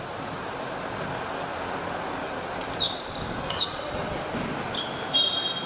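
Basketball shoes squeaking on a hardwood court in short high chirps, several in quick succession about halfway through and again near the end, over the steady noise of an indoor sports hall.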